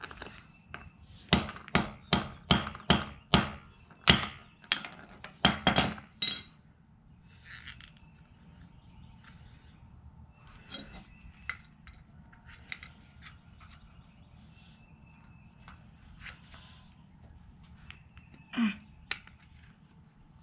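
Claw hammer striking a small plastic Bluetooth speaker lying on concrete: a quick run of about a dozen sharp blows in the first six seconds. After that come faint clicks of the plastic casing being handled, and one more sharp knock near the end.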